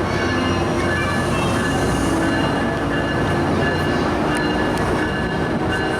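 Tri-Rail diesel-hauled commuter train pulling out of the station: a steady, loud rumble of the locomotive and rolling cars, with a thin, steady high whine over it.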